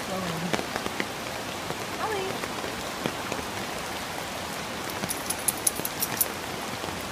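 Steady rushing hiss of a flood-swollen river and falling rain. Brief voice-like sounds at the start and about two seconds in, and a quick run of sharp clicks near the end.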